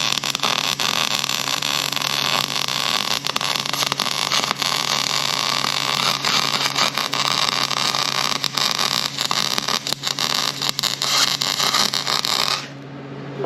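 Wire-feed welder arc crackling steadily as a bead is run along steel, then cutting off sharply near the end, over a steady low hum.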